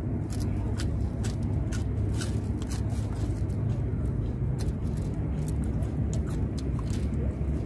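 Close-up chewing and crunching of raw lettuce leaves and hand-eaten food, heard as many short crisp clicks, over a steady low rumble.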